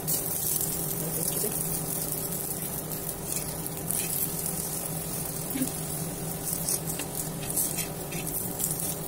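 Methi paratha frying in ghee on a tawa, sizzling steadily, with a few short scrapes and taps of a flat metal spatula pressing and lifting it.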